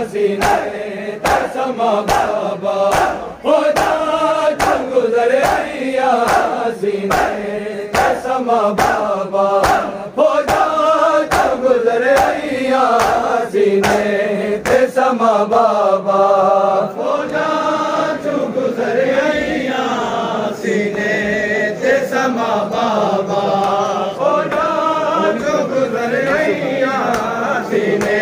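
Men chanting a Shia noha together, with sharp slaps of open hands striking bare chests (matam) in a steady beat. The slaps are strongest in the first ten seconds or so.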